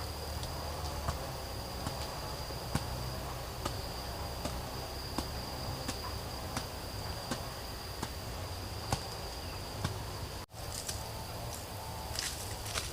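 Forest insects, crickets or cicadas, keeping up a steady high-pitched drone, with a sharp knock about every second over it. The sound drops out for an instant about ten seconds in, then the same drone carries on.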